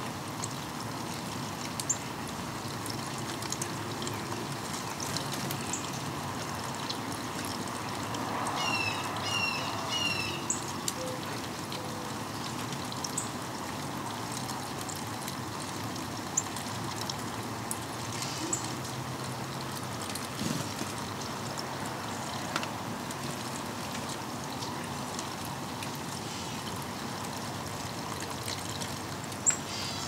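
Steady rain falling, with water trickling and scattered drops ticking on surfaces. About nine seconds in, a bird gives a quick series of short calls.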